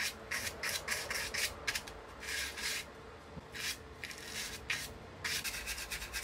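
Dry bristle paintbrush brushing dust off old speaker cones and their frames: quick scratchy strokes, several a second, in an uneven rhythm with a short pause midway.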